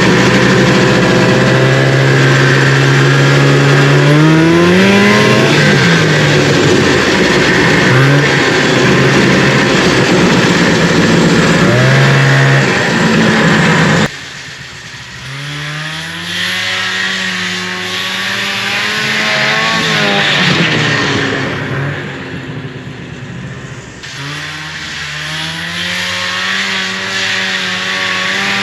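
Fan-cooled 340 two-stroke engine of a 1974 Arctic Cat Lynx snowmobile running, revving up and down repeatedly. About halfway through the sound drops suddenly to a quieter level, and the engine keeps rising and falling in pitch.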